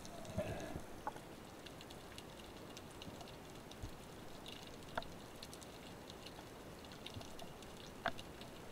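Underwater ambience on a rocky reef: a steady hiss with faint crackling clicks scattered throughout, a few sharper clicks about a second in, at about five seconds and near the end, and a muffled knocking near the start.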